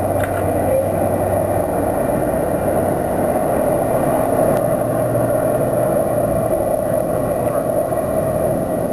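Steady street noise of passing car traffic.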